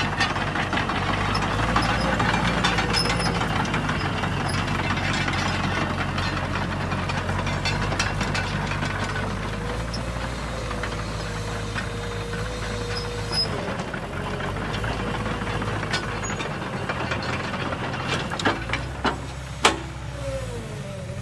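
JCB JS220LC tracked excavator's diesel engine running steadily, with a whine that wavers up and down in pitch and a few sharp knocks near the end.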